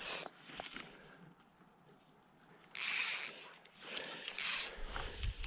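A few brief rustling noises, the loudest about three seconds in, followed by a low rumble near the end.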